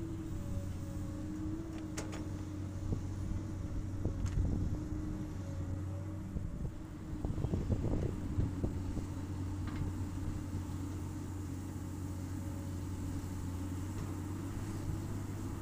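Komatsu PC200 hydraulic excavator's diesel engine running steadily through its work cycle, with a few sharp clanks and, about halfway through, a cluster of knocks and scraping as the bucket digs into the soil.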